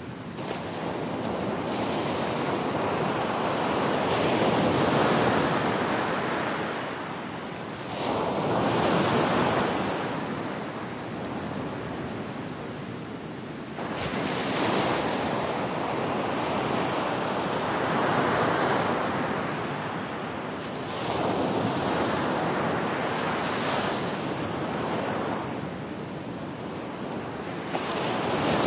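Ocean waves washing onto a shore, each one swelling and then fading back, with a new surge every four to six seconds.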